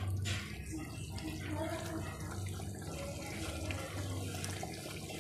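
Thick beef chop curry simmering in an open pan, the gravy bubbling and popping steadily, over a low steady hum.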